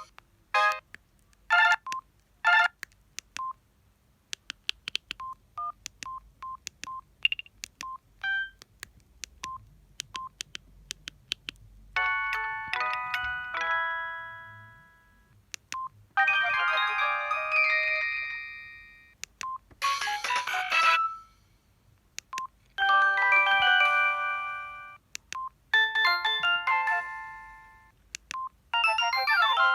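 Samsung SGH-D600 mobile phone's loudspeaker playing its preloaded ringtones: a run of short beeps and clicks, then from about twelve seconds in a string of brief melodic ringtone snippets with several notes together, one after another with short gaps and single beeps between them.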